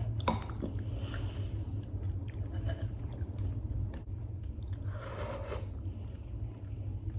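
A person chewing food close to the microphone, with short mouth clicks and a longer, louder chewing sound about five seconds in, over a steady low hum.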